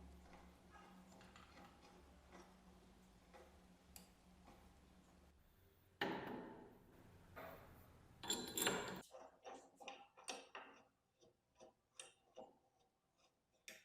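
Faint light ticking, then two brief rasping noises about six and eight seconds in, followed by a run of irregular small mechanical clicks, as of a small metal mechanism being worked by hand.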